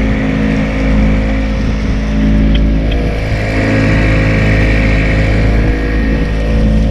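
Small outboard motor pushing a fishing kayak at speed, running steadily at one pitch, with the rush of water from the wake.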